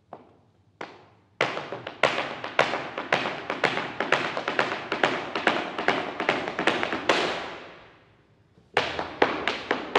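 Flamenco shoes striking a hard floor in zapateado footwork: a couple of single stamps, then about a second in a fast, dense run of heel and toe strikes lasting some six seconds and dying away, a short pause, and a new burst of strikes near the end.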